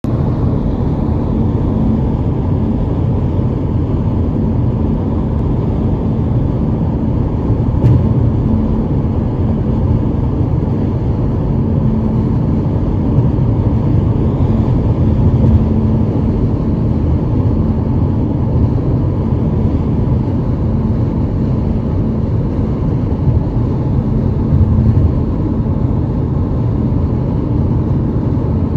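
Steady low road and wind rumble of a car driving at speed, heard from inside the car, with a faint steady hum and a single brief click about eight seconds in.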